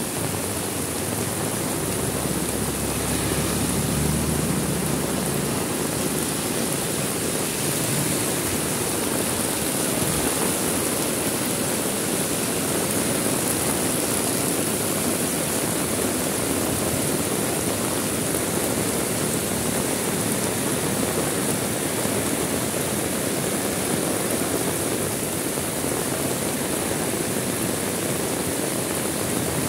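Heavy rain falling steadily, a dense even hiss, with a low rumble swelling briefly a few seconds in.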